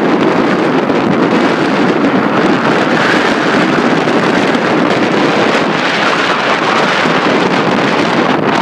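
Strong gusty wind blowing hard across the microphone, a loud, steady rushing roar.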